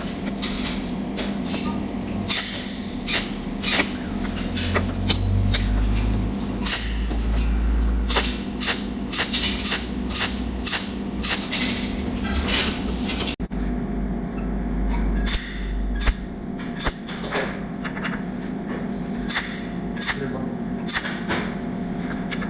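Cold welding machine firing spot-weld pulses: sharp snapping clicks at irregular intervals, about one or two a second, over a steady hum. A low rumble runs under it through the middle.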